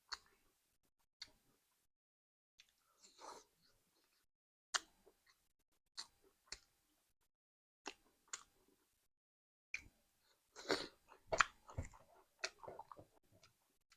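Close-up mouth sounds of a person eating curry with rice: single wet smacks and clicks about once a second, then a busier run of chewing about ten seconds in.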